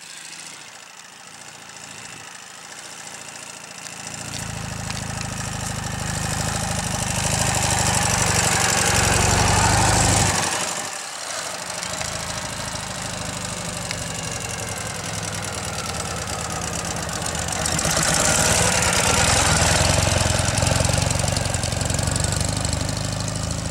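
Ural sidecar motorcycle's flat-twin engine running as the outfit is ridden past. The engine grows louder over the first several seconds, dips briefly about ten seconds in, then swells again near the end.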